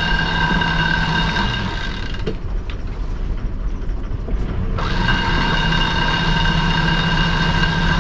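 Electric sail winch whining as it hoists the mainsail. It stops abruptly about two seconds in and starts again about five seconds in, over a low steady engine hum.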